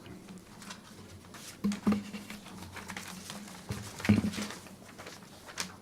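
Quiet room tone with a steady low hum, broken by a few brief short noises about two seconds in, around four seconds and near the end.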